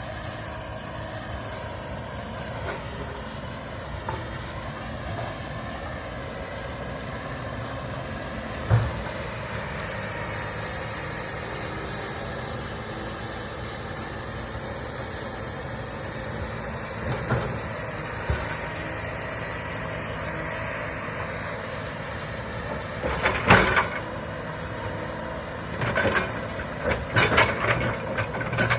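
Komatsu excavator's diesel engine running steadily under load, its pitch rising and falling as it works. Sharp cracks and knocks break in a few times, loudest in clusters in the last few seconds.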